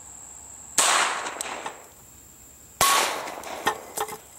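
.22 LR pistol shots: two sharp cracks about two seconds apart, each trailing off, with a few faint clicks between them.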